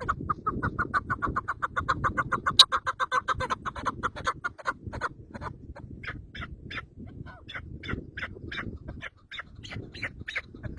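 A fowl clucking: a fast run of clucks, about ten a second, for the first few seconds, then slower, higher calls spaced apart. There is a sharp click about two and a half seconds in.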